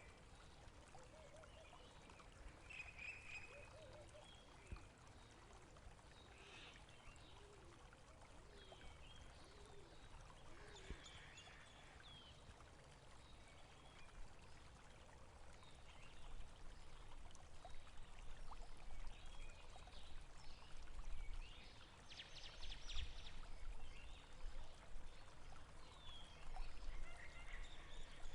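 Water trickling and flowing in a stream, with scattered short bird calls; a low rumble grows louder in the second half.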